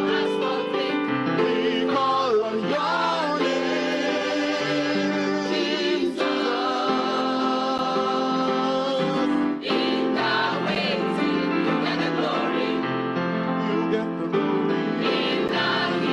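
Mixed gospel choir of men and women singing a worship song in English in held, chorded phrases, with short breaks between phrases about six and ten seconds in. The lines sung include "Beyond what we could ask or think" and "In the healing, You get the Glory".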